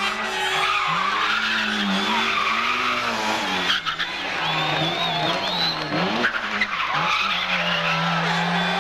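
Competition car engine driven hard, its note swelling up and down in quick repeated arcs with tyre and skid noise, then holding one steady note near the end. Two brief sharp cracks come a little before the middle and again past it.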